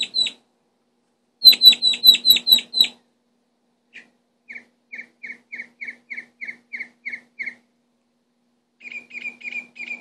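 Songbird singing in a tree at night, repeating each note in a phrase before changing it: a loud, fast run of about eight sharp high notes, then a softer, slower series of about a dozen lower notes, and a short quick burst near the end.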